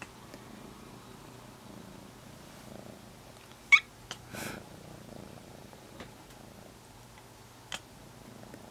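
Black-and-white kitten close up against the microphone, purring faintly and steadily. A brief sharp high sound a little under four seconds in is the loudest moment, followed by a short sniff, and a small click comes near the end.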